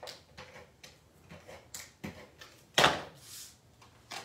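Cardstock being handled and laid on the work surface: small rustles and light taps, with one louder sudden tap about three seconds in.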